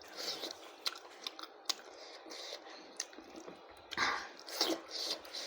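A person chewing a mouthful of cooked goat lung and rice, with wet chewing noises and sharp mouth clicks and smacks at irregular intervals, a louder burst of chewing about four seconds in.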